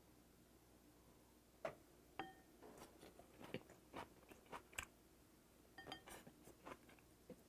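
Faint close-miked chewing and crunching of a mouthful of seasoned raw gizzard shad and rice, starting about a second and a half in and going in quick clusters of small crunches, with a couple of short ringing clinks from the utensils.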